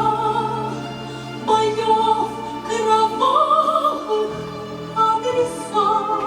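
A woman's voice sings a slow song, holding notes with vibrato, over a steady orchestral-style accompaniment.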